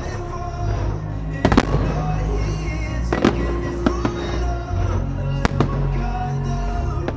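Fireworks bursting in the air, a handful of sharp bangs a second or two apart, over loud music with a steady bass line.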